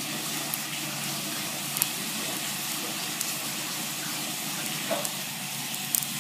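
A shallow layer of water boiling hard in a small non-stick frying pan, a steady bubbling hiss with a few small pops. The water is being boiled off so the pan is dry before the chicken goes in.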